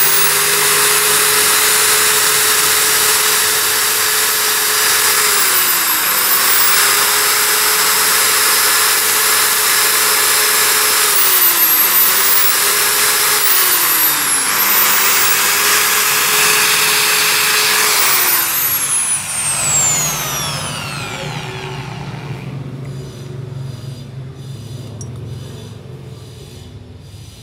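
Electric die grinder with a felt polishing bob running at full speed while polishing the combustion chamber and valve of a motorcycle cylinder head. Its steady high whine dips in pitch three times. About two-thirds of the way through it is let go and winds down with a long falling whine.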